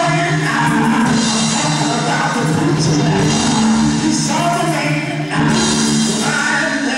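A man singing gospel into a handheld microphone over live instrumental accompaniment, with steady low sustained notes beneath the voice.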